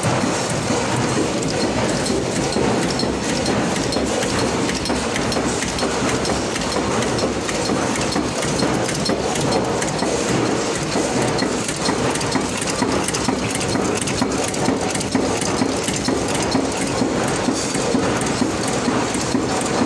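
Taiwan-made nut former (a cold-forging nut-making machine) running in production, giving a loud, steady, dense metallic clatter that doesn't let up.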